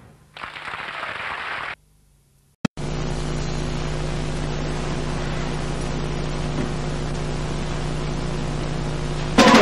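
Steady electrical hum with tape hiss from an old videotape between two recorded excerpts, starting with a click about three seconds in after a moment of silence. Orchestral music comes in just before the end.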